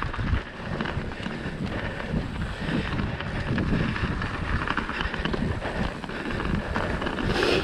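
Mountain bike descending a trail, heard from an on-bike action camera: wind buffeting the microphone over tyres rolling on snow and dirt, with the bike rattling and knocking over bumps.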